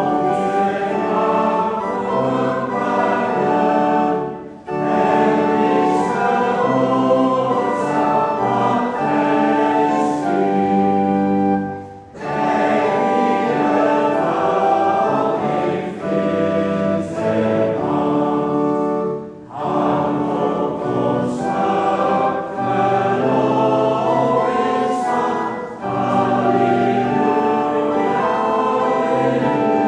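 Church congregation singing a hymn together, sustained sung lines with brief pauses between phrases, about 4.5, 12 and 19.5 seconds in.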